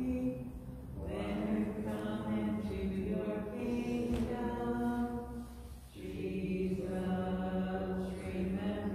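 A slow hymn being sung, with long held notes in drawn-out phrases and brief breaths between them about a second in and again about six seconds in.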